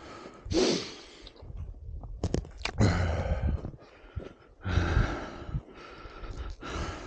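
A man breathing hard close to the microphone: about four loud breaths, one every two seconds or so, with a few short clicks in the middle.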